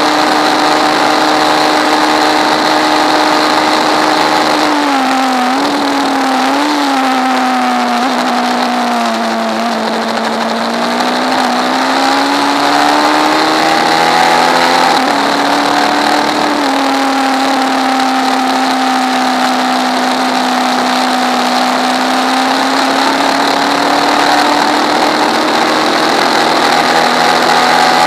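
Hyper Pro Racer race car's engine heard on board, running hard the whole time. Its pitch falls and wavers from about five seconds in, bottoms out around ten seconds, climbs back by fifteen, then holds steady. A steady high whine runs alongside it.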